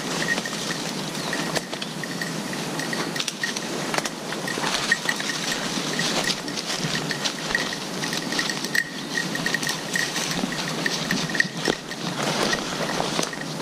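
Footsteps crunching through dry leaf litter and brushing undergrowth, with a faint high ping repeating unevenly two or three times a second from the hunting dog's collar.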